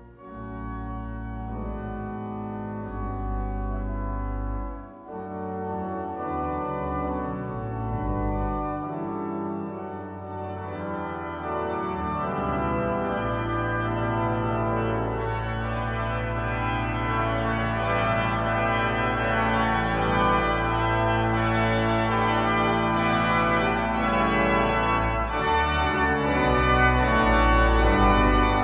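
Pipe organ playing held chords over deep pedal bass notes. The music grows fuller and louder, especially from about ten seconds in.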